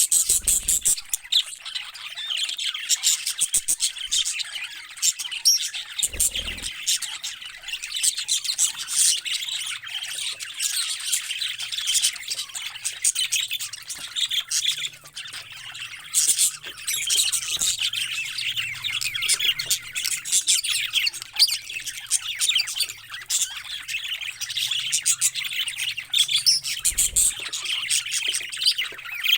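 A flock of parrots chirping and squawking continuously, many high, rapid calls overlapping.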